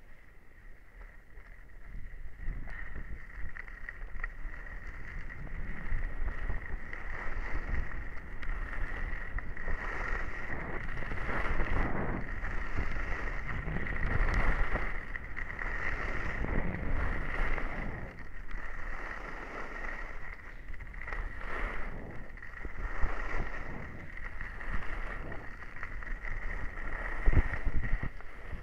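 Skis sliding and scraping over packed snow during a downhill run, swelling and fading with the turns, with wind rushing over a helmet-mounted camera's microphone.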